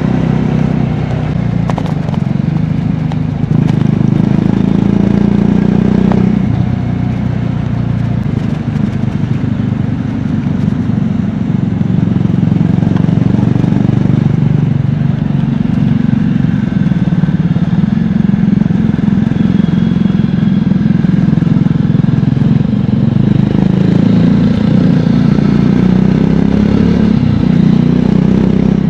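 Triumph Scrambler 400X's single-cylinder engine and exhaust running under way, the engine note rising and falling with the throttle as the bike rides on.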